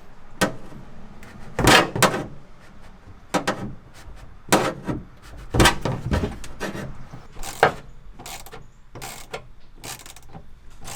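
Irregular clanks and knocks of hand tools and metal parts being worked on a car, with some ratchet-like clicking.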